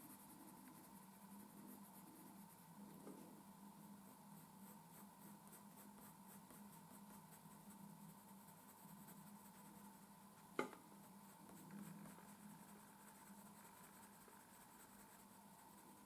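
Faint, quick scratching of a coloured pencil's tip on paper, shading with very light pressure. A single sharp click about ten and a half seconds in.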